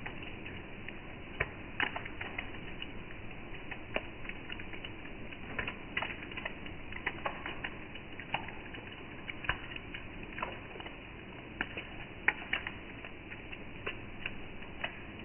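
Rain falling with a steady hiss, and drops tapping irregularly on hard surfaces, several taps a second with some sharper and louder than others.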